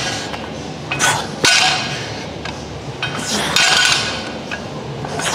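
Metal weight plates clanking in a gym: a few sharp metallic clangs, each ringing briefly, spaced a second or two apart.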